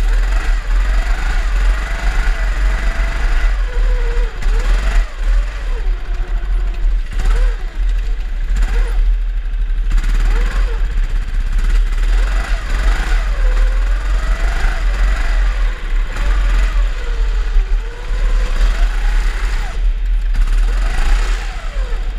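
Drift kart motors rising and falling in pitch over and over as the karts accelerate and back off, with several of them overlapping, over a constant deep rumble.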